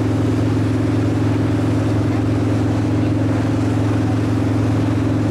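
A boat's engine running at a steady speed, an even low drone with a steady hiss of wind and water over it, heard on board.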